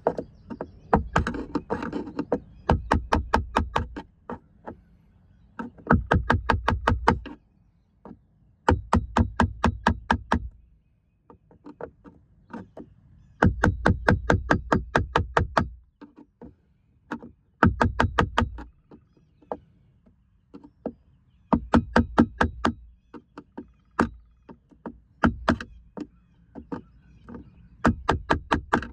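Ratchet wrench clicking in quick runs of about eight clicks a second, broken by short pauses, as a fitting on the waterer is tightened.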